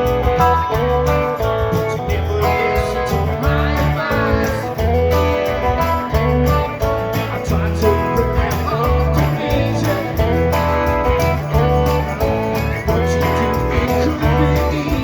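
Live rock band playing, with electric guitars over a steady bass and drum beat.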